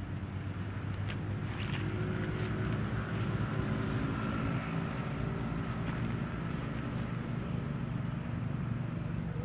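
A steady low, engine-like drone, such as a motor vehicle running, with a few faint clicks between one and two seconds in.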